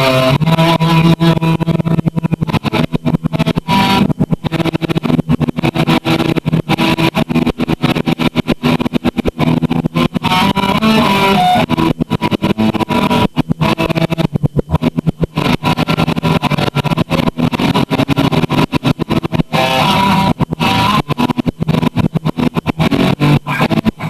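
Guitar being played continuously: a dense run of quickly picked notes and chords.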